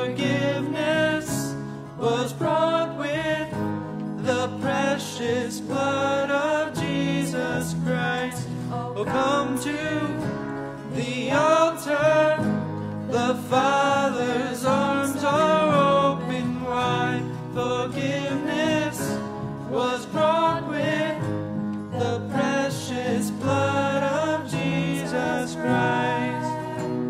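Contemporary worship music: a song sung with instrumental accompaniment.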